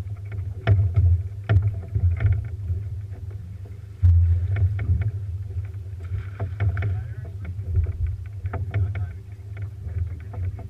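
A small boat on the water: a steady low rumble under many irregular sharp knocks and slaps of water and gear against the hull.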